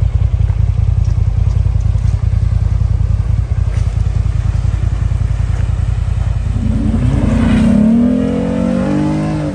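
Off-road vehicle engine running under way with a heavy, steady low rumble; about two-thirds of the way in an engine revs up, its pitch rising and growing louder, before the sound cuts off abruptly at the end.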